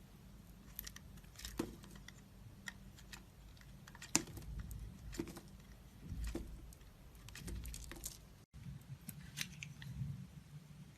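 Hard soap being handled and worked: scattered crisp clicks and small crackles at an uneven pace, with a short break to silence about eight and a half seconds in.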